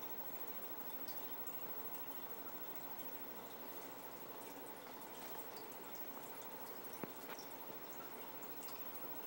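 Aquarium filter water trickling and dripping steadily, with one sharp click about seven seconds in.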